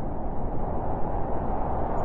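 Blizzard wind howling steadily, a hollow, even rush over a low rumble.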